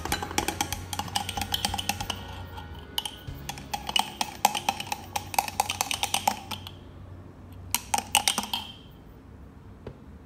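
Stainless-steel straw stirring a chia seed smoothie in a glass jar: rapid clinks of metal against glass with a light ringing, stopping about two-thirds through, then a second short burst of stirring about eight seconds in.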